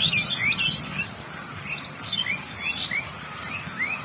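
Small birds chirping: a run of short rising chirps, two or three a second, over a low steady background noise.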